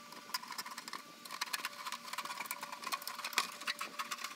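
Scissors cutting through a flexible aluminum foil dryer vent hose: a quick, irregular run of small sharp snips and crinkles of the thin foil.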